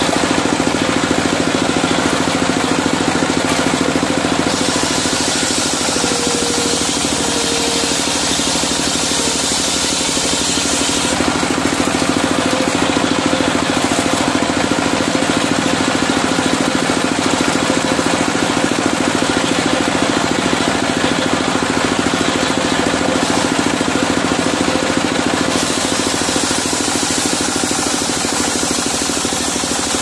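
Single-cylinder diesel engine of a mobile circular sawmill running steadily, driving the saw.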